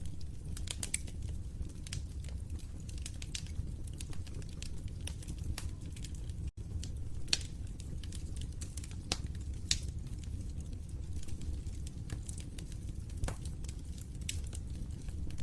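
Fireplace fire crackling: scattered sharp pops and snaps at irregular intervals over a steady low rumble of the flames, with a split-second break in the sound about six and a half seconds in.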